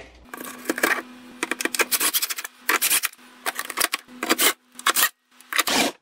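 Milwaukee M12 cordless drill/driver running in several short bursts, driving screws into the freezer's plastic sliding-rail brackets, with sharp clicks and plastic clatter from the rail being handled between the bursts.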